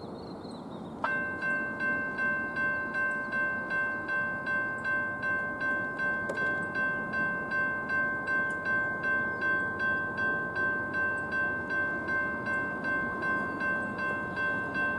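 A railroad bell starts ringing suddenly about a second in, with clear ringing tones struck evenly about twice a second at a steady loudness.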